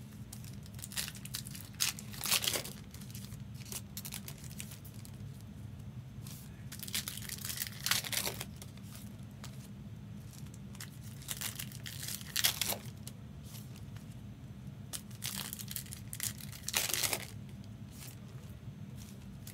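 Trading card pack wrappers being torn open and crinkled by hand, in several rustling bursts a few seconds apart.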